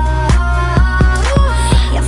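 Electronic pop song, instrumental part: a synth melody that slides between notes over a deep bass, with a steady beat of about four strokes a second.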